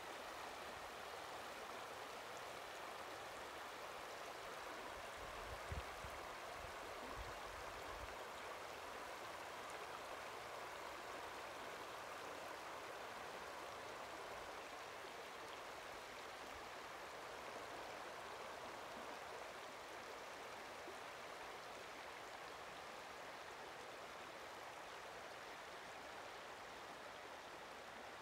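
Shallow river water running steadily over a cobble riffle, a soft, even rush of small ripples and trickles.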